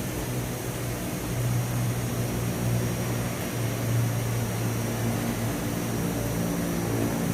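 A steady low mechanical drone, like a motor or engine running, with weaker wavering tones above it and a faint hiss.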